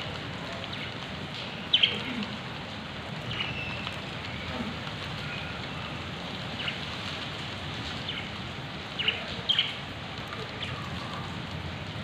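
Rain falling steadily on wet paving, with budgerigars giving short chirps now and then, the loudest about two seconds in and a pair near the end.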